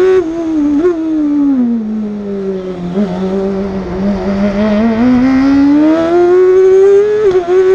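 On-board sound of an Osella PA21 JRB sports prototype's BMW engine: the revs fall away over a couple of seconds, hold low, then climb back up under acceleration, with brief dips in pitch near the start and near the end.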